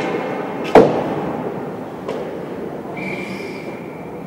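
A loud, sharp bang about a second in, echoing in a large hall, followed by a fainter knock and then a steady high tone lasting about a second near the end, over continuous background noise.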